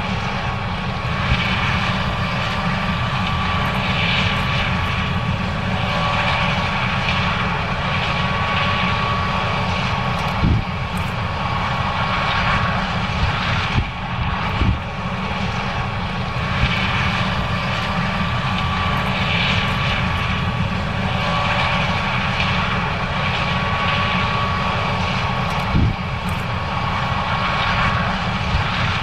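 John Deere S790 combine harvester running steadily while harvesting corn: a continuous engine and machinery drone with a thin high whine, and a few brief thumps scattered through.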